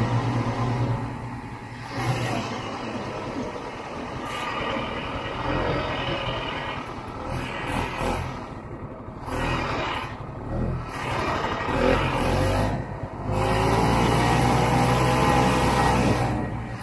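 Snowmobile engine and track running as the machine is ridden over packed snow, the throttle eased off briefly several times and then held, running louder and steadier for the last few seconds.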